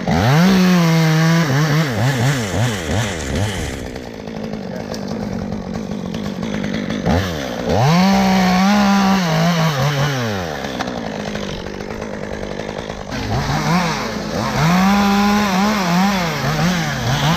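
Two-stroke chainsaw revved up to full throttle three times, dropping back to idle in between. During the last burst the pitch dips and wavers, as when the chain is cutting into wood.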